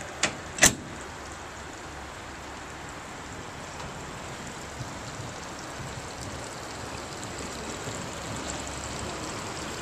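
Two sharp metallic clacks in the first second, the second louder, as the aluminium access panel on the boat's transom bulkhead is latched shut. A steady, even hiss follows.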